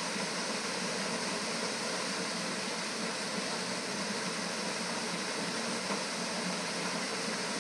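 Waterfall: steady rushing water with an even hiss.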